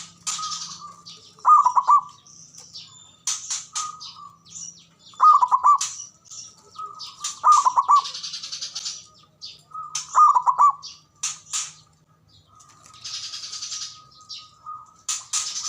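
Zebra doves (perkutut) cooing: a rolling, trilled call comes four times, two to four seconds apart, with fainter cooing notes between. Many short high chirps from smaller birds run over it.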